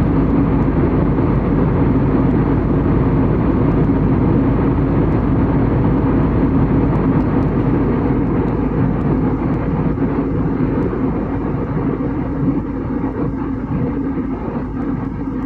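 Airliner cabin noise at a window seat: the steady rumble of the jet engines and rushing air with a constant low hum, easing off slightly in the second half.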